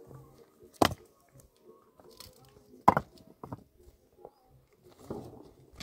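Two loud, sharp knocks about two seconds apart, the second the loudest, with a fainter knock half a second after it.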